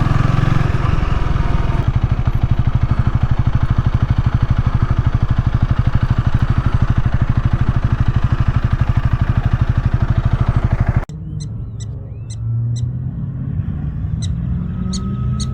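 Honda Rebel 300's single-cylinder engine idling with a steady, even pulse, which cuts off abruptly about eleven seconds in. After that, prairie dogs give short high chirps, repeated several times near the end.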